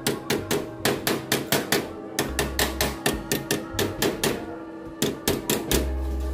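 Hammer striking sheet steel at a car roof's rear corner: quick sharp metallic taps, about four a second, with a couple of short pauses. The taps shape the slit tabs of the panel into the corner's curve.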